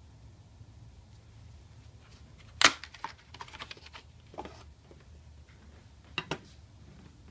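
Cardboard lamp box being handled and opened: a sharp snap about two and a half seconds in, then a run of light rustles and clicks as the long compact fluorescent tube comes out, and two light knocks near the end as the lamp is laid on the table.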